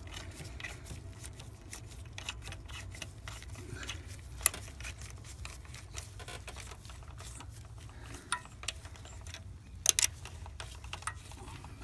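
Socket ratchet clicking as the mounting bolts of a GDI high-pressure fuel pump are run down, a rapid fine ticking broken by a few sharper metal clicks, two of them close together near the end.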